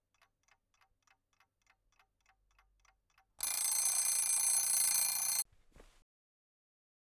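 Analog alarm clock ticking about three times a second, then its alarm rings loudly for about two seconds and cuts off abruptly as it is switched off.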